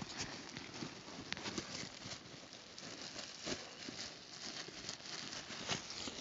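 Black plastic garbage bag rustling and crinkling in irregular small crackles as it is gathered and tied shut.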